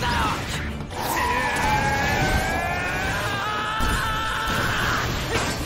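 Cartoon energy sound effect: a sustained high whine of several tones slowly gliding apart, over a low rumble, starting about a second in and dying away near the end.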